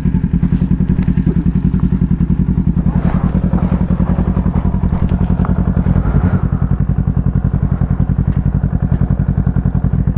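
Kawasaki Z650's parallel-twin engine idling steadily, a fast even pulse.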